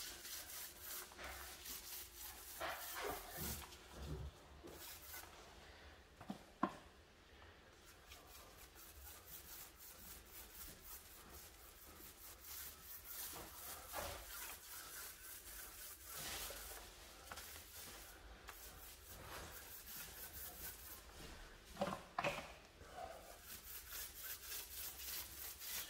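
Faint, repeated rubbing strokes of a paintbrush applying paint to a plastered window reveal along the window frame, with a single sharp tap about six and a half seconds in.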